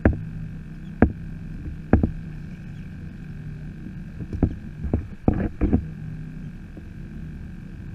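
Sharp knocks on a plastic sit-on-top kayak hull, three about a second apart, then a quicker cluster about four and a half seconds in, over a steady low hum.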